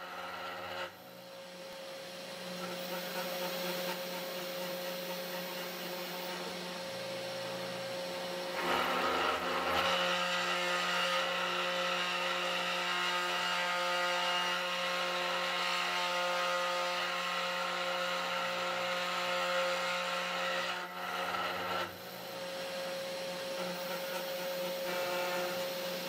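CNC 3018 Pro Max router's milling motor running steadily while a 30-degree V-bit cuts a relief into beech wood. The cutting gets louder about nine seconds in and dips briefly around twenty-one seconds.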